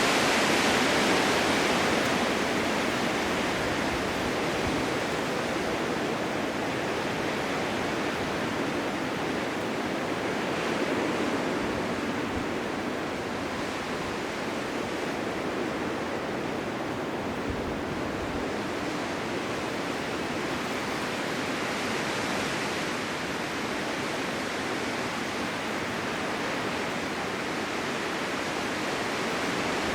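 Blizzard ambience: a steady rush of wind-driven noise that swells and eases slowly, a little louder at the start.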